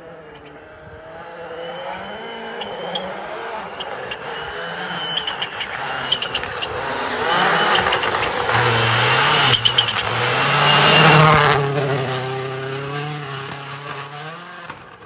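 Hyundai i20 Rally1 Hybrid rally car's turbocharged 1.6-litre four-cylinder engine at full attack on a snowy road, its pitch rising and falling repeatedly through gear changes, with sharp pops along the way. It grows louder as it approaches, is loudest as it passes about eleven seconds in, then fades as it drives away.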